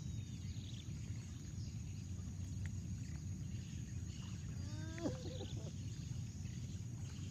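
Outdoor rural ambience: a steady low rumble, faint bird chirps and a thin, steady high-pitched insect whine. About five seconds in comes one short rising call.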